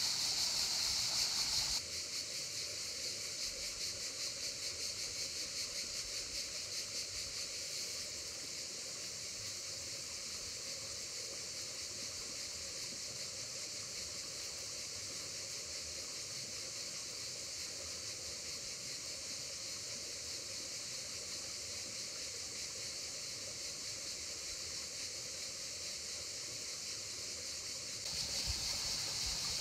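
Steady rush of river water, with a high insect chirring over it that is strong for the first two seconds, drops back, and returns near the end.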